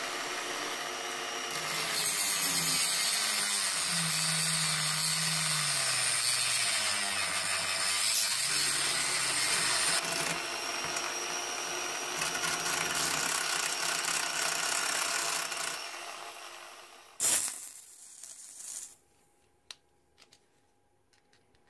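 Handheld rotary tool running at high speed as its bit grinds a screwdriver notch into the metal screw of a CO2 pistol magazine. The motor's whine dips in pitch and recovers as the bit bites into the screw, and the tool winds down about 16 seconds in. A single sharp knock follows, then faint handling clicks.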